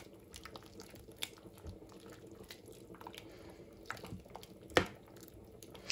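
A metal ladle stirring a thick, chunky vegetable chilli in a metal pot: soft wet squelching and light scrapes, with one sharper clink of the ladle against the pot near the end.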